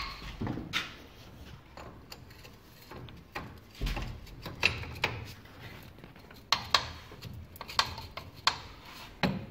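Scattered metal clinks and knocks, about a dozen at irregular intervals, as a splined propeller shaft is handled and fitted onto its splines under a lifted vehicle.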